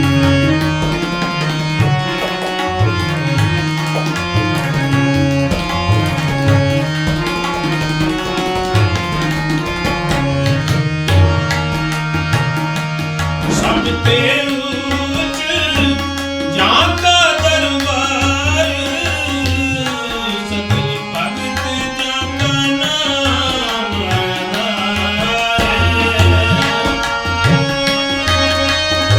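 Instrumental interlude of Sikh kirtan: tabla keeps a steady rhythm under sustained harmonium tones. About halfway through, a higher melodic line joins in, bending and gliding in pitch.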